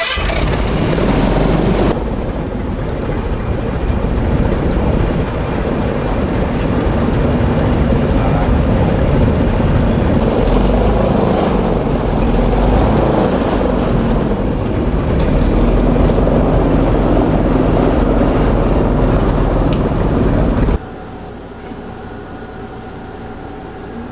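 Airboat's engine and big air propeller running loud and steady as the boat comes in to dock. It stops abruptly near the end, leaving a quieter steady hum.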